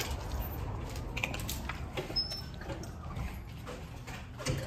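Footsteps and handling noise from a person walking while holding a phone: scattered soft clicks and rustles over a low rumble, with a brief faint high squeak about two seconds in.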